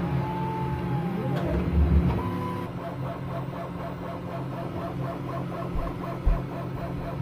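Bambu Lab P1S 3D printer running a print: a steady low hum of its fans and motors, with a whine that rises and falls in pitch over the first second and a half as the motors move.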